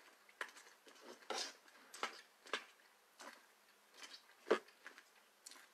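Soft, irregular clicks and crunches of someone eating cereal with a bamboo-and-coconut spoon from a coconut bowl, the loudest about four and a half seconds in.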